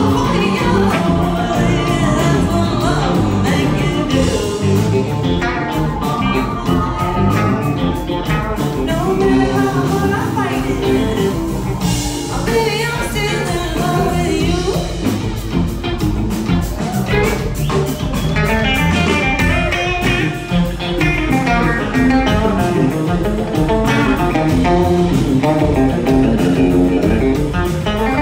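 Live band playing a blues-soul song: a woman sings lead over electric guitar and drums.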